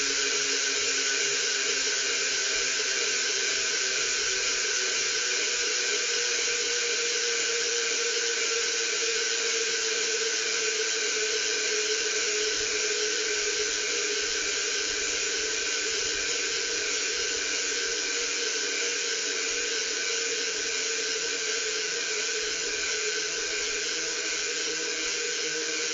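Superstar Components rear hub with 120 points of engagement freewheeling as the rear wheel spins, its pawls clicking so fast that they run together into a steady buzz. The buzz eases slightly toward the end as the wheel slows.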